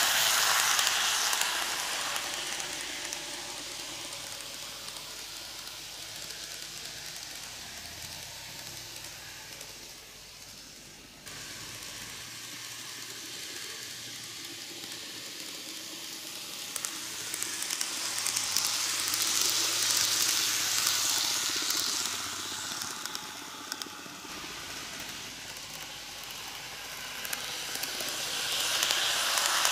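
N-gauge model of a Tobu 6050 series four-car train running on superelevated model track, a steady hissing rumble of small wheels on the rails and the motor car. It is loud as the train passes close at the start and fades as it runs round the loop. It swells again about two-thirds of the way through, then rises once more near the end as the train comes back toward the microphone.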